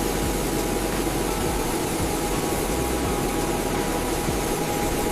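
Jet engine running steadily: an even rush of noise with faint steady whine tones, no rise or fall.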